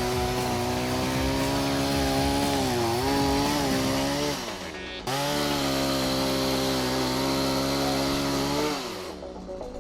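Chainsaw running at high revs, its pitch sagging and recovering as it cuts. The sound drops off briefly about four seconds in, comes back abruptly, and fades again near the end.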